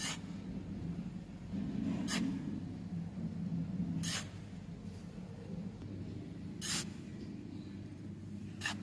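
Small metal-bladed hand shovel digging and scraping damp sand, with a short sharp scrape about every two seconds, five in all.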